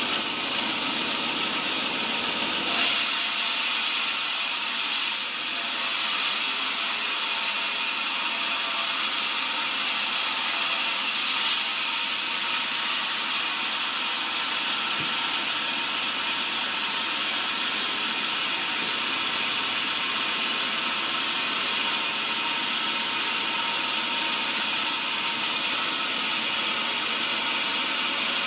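Sawmill band saw running and ripping lengthwise through a cempaka log, a steady high rushing saw noise that holds even throughout.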